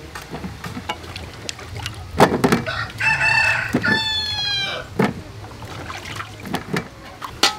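A rooster crows once, starting about three seconds in, a call of about two seconds that falls in pitch at the end. Scattered knocks and clinks come from wet sweet potatoes being set down on a metal tray.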